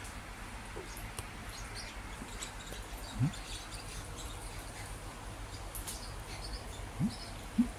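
A dog gives short, low rising whines, about three seconds in and twice near the end. Underneath is the steady low hum of an electric fan, with faint high chirps in the background.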